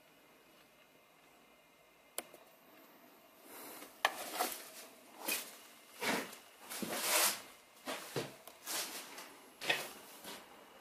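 Footsteps crunching and scraping over debris on a ruined floor, about a dozen uneven steps at a walking pace, after a single sharp click a couple of seconds earlier.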